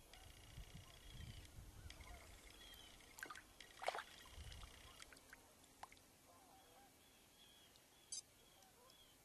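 Quiet creek ambience: faint water sloshing, with a sharp splash about four seconds in, under repeated short high bird chirps.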